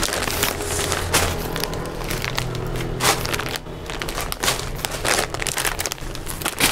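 Clear plastic packaging crinkling and rustling in irregular crackles as packed unstitched suits are handled and shuffled.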